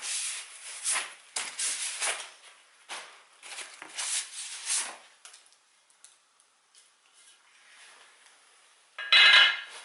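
Packaging rustling and rubbing as chair parts are handled and unwrapped, in a run of short bursts over the first five seconds. About nine seconds in comes a louder, harsh scrape.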